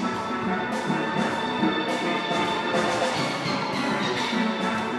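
A full steelband playing together: many steel pans ringing out a fast, bright calypso tune, over a steady beat of percussion.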